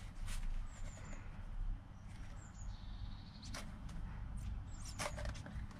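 Faint handling and rubbing of a microfibre polishing cloth and polish applicator, with a few light clicks and small high squeaks, over a steady low hum.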